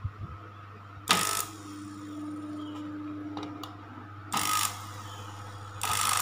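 Food processor's exposed brushed motor switched on in three short bursts, each a harsh whirr of about a third of a second: the first about a second in, the last two near the end. The motor spins, but its carbon brushes throw sparks, which the owner puts down to a possible short in the wiring.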